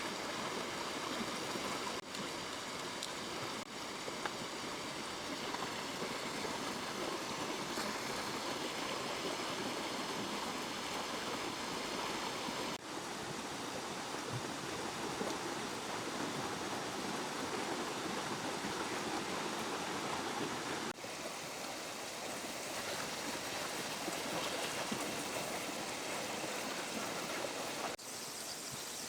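River water flowing and rushing steadily over stones, a constant even hiss, with a few brief momentary dips in level.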